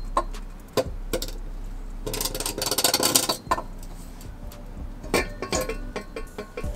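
Stock steel exhaust mid pipe of an Acura RSX Type S being worked free from under the car and brought down onto concrete: scattered metal clinks and knocks, with a dense scraping clatter about two seconds in that lasts a second and a half.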